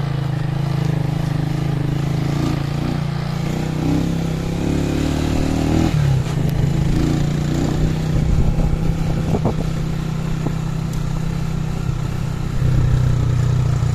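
Small motorcycle engine running steadily under way on a rough gravel road, ridden from the seat. The engine note changes about six seconds in and grows louder briefly around eight seconds and again near the end as the throttle is opened.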